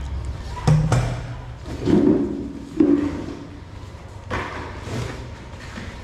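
A few thumps and knocks on a tabletop as Shih Tzu puppies are handled and set down on it, the sharpest about three seconds in.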